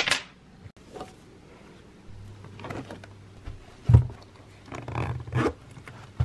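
Handling noise on the camera's microphone as it is picked up and carried: a sharp click at the start, then muffled rubbing and several thumps, the loudest about four seconds in.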